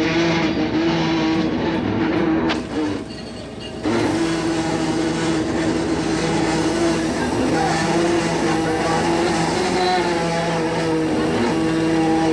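Steady drone of a fishing boat's engine and deck machinery, holding one pitch, with a sudden drop for about a second around three seconds in.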